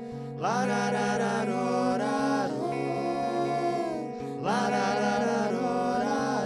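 Live band music: electric guitar playing under long, held wordless sung notes, in two phrases, the second starting about halfway through.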